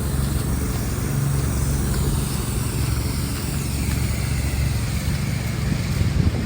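A vehicle engine running steadily on a city street, a low rumble with a faint sweep of traffic noise.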